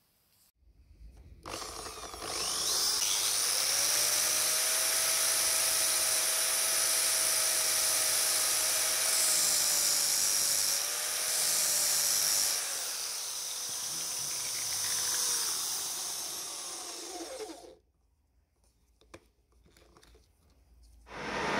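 An angle grinder and an electric drill running together, the grinder's disc grinding the end of a metal rod turning in the drill's chuck as a makeshift lathe. The motors speed up about two seconds in, run steadily, then wind down and stop a few seconds before the end.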